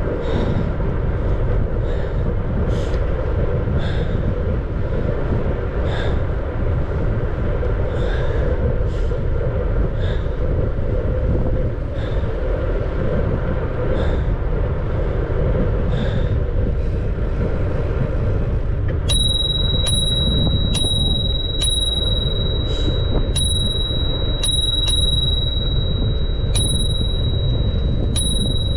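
Wind and riding noise from a bicycle in motion: a steady low rush with faint ticks every second or two. About two-thirds of the way through, a steady high-pitched tone comes in and holds, with short sharp clicks over it.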